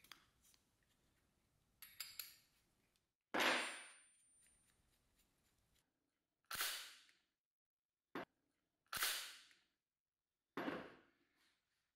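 Aerosol spray can hissing in five short bursts through its straw into a small-engine carburetor, each spray fading within about half a second. The first is the loudest and the fourth the shortest. Two faint clicks come before the first spray.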